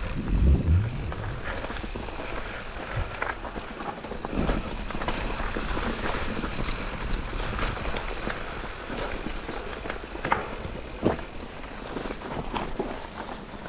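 Mountain bike rolling fast down a leaf-covered dirt singletrack: a continuous rush of tyre noise over dirt and dry leaves mixed with wind on the microphone, broken by sharp knocks from bumps in the trail. A heavy low thump comes about half a second in.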